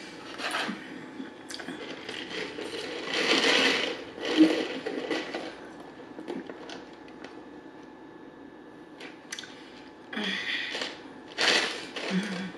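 Sipping an iced drink through a straw from a clear plastic cup, close to the microphone: short sucking and swallowing bursts, with ice and the plastic cup rattling and clicking as it is handled. A few of these bursts come with quieter gaps between them.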